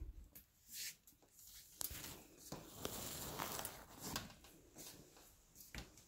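Faint rustling with scattered clicks and taps from the recording phone being handled and moved about.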